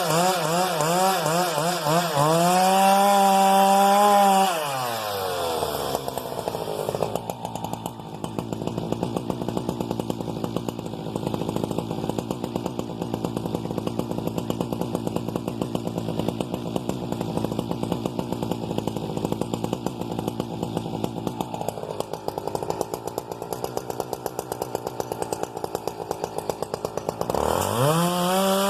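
Husqvarna 395XP two-stroke chainsaw with a long 33-inch bar running at high revs with a wavering pitch. About four seconds in it drops to a steady, pulsing idle, then revs back up to full throttle near the end.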